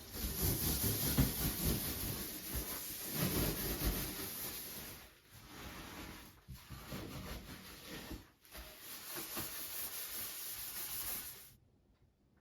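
Steady hissing noise that drops out briefly three times and cuts off abruptly near the end.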